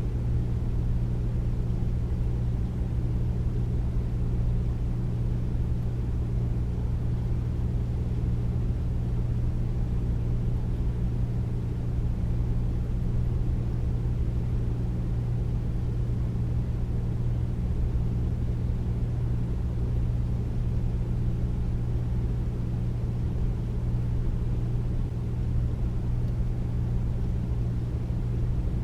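Air conditioner running: a steady, deep hum under an even rush of air, unchanging.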